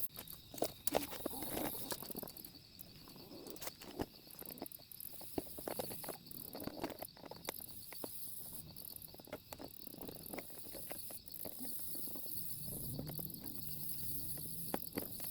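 Scattered light knocks and footsteps as the cleaned water dish is carried back and set down, over a steady high chirping of insects.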